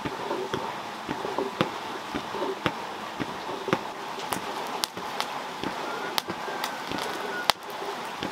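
Burning charcoal in a clay forge crackling, with irregular sharp pops over a steady hiss.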